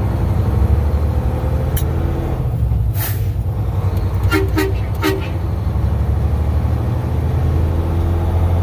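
Truck engine running with a steady low drone heard from inside the cab. About four seconds in, the truck's horn gives three short toots, and just before them there is a brief hiss.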